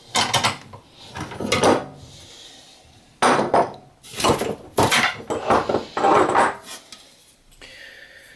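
Clamp being released and a thin bent aluminium sheet-metal part handled on a work table: several irregular bursts of metallic clattering and scraping.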